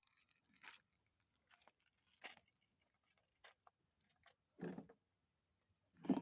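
A few faint, scattered clicks and knocks of objects being handled, with a duller knock about halfway through and a louder clatter at the very end.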